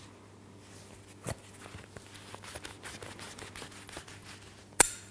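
Cloth napkin wiping the neck of a freshly uncorked wine bottle: soft rustling and small clicks, with a click about a second in and a sharp knock near the end, the loudest sound.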